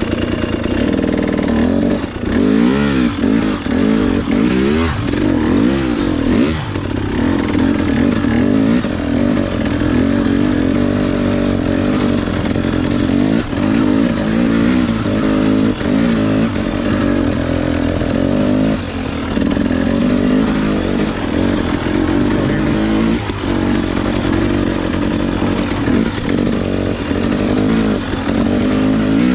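Two-stroke 300 cc enduro dirt bike engine running under load, revving up and down repeatedly in the first several seconds, then running more steadily with smaller changes in throttle.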